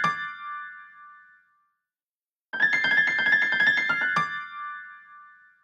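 iPhone ringtone playing a quick electric-piano riff of rapid notes that ends on a held note and rings out. The first play is fading at the start, and the riff plays again about two and a half seconds in.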